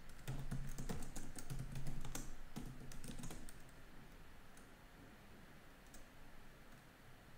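Typing on a computer keyboard: a quick run of key clicks for about three and a half seconds, then faint room tone with a couple of isolated clicks.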